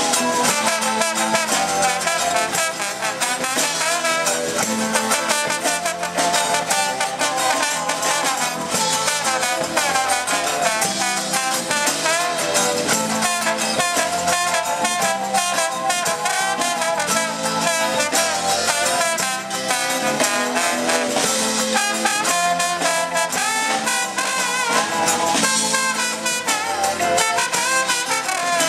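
Live Latin band music with a trombone playing the lead over the band's steady beat.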